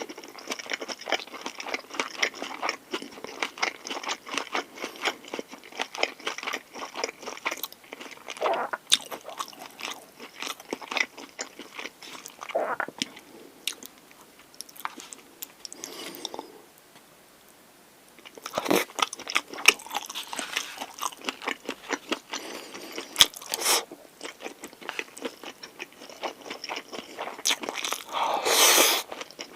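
Close-miked eating of a pork galbi lunchbox: crunching bites, chewing and small wet mouth clicks, going quiet for a few seconds about halfway before the chewing picks up again.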